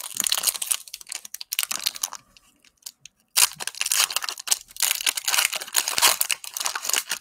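Plastic cellophane wrapper of a trading-card cello pack crinkling and tearing as it is ripped open by hand, in two spells of crackling with a short pause between.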